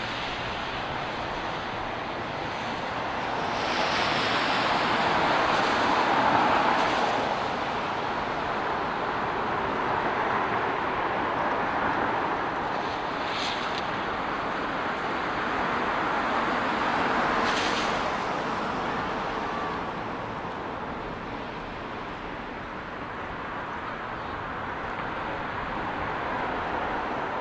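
City road traffic: a steady hiss of tyres on the wet road and car engines, swelling several times as cars pass below, loudest about four to seven seconds in.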